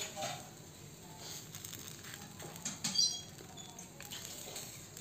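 Faint handling sounds of a coconut-filled rice pitha being rolled up by hand on an iron tawa: soft rustling and light taps, with a brief high chirp about three seconds in.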